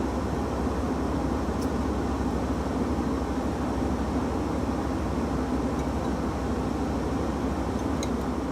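Airliner cabin noise: a steady, even rumble of jet engines and rushing air.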